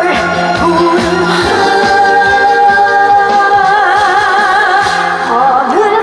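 A woman sings a Korean pop-folk medley live into a microphone over a backing track with a steady beat. She holds one long note with vibrato through the middle. Janggu hourglass drums are played along with the music.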